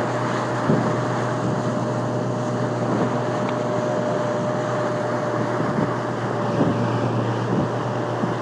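Boat motor running steadily under way, with wind on the microphone and a few thumps scattered through.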